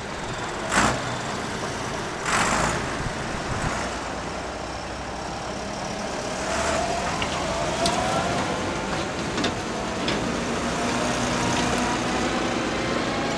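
Tractor engine running at a tractor-pulling track, its pitch rising gradually about six seconds in and then settling into a steady hum. Two short rushing noises come about one and two and a half seconds in.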